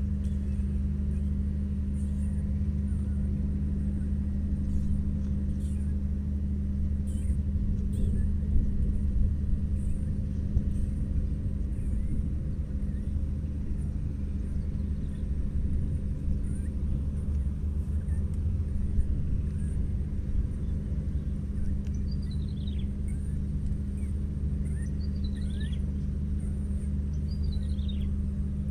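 A steady low mechanical hum with a constant pitch, like a motor running at a distance. A few short, high, falling chirps come near the end.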